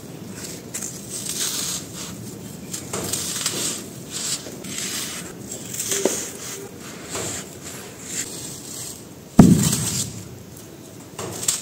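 Dry sand-cement chunks crumbled by hand: gritty crunching and trickling dust in repeated bursts. Late on, a chunk lands with one loud thud.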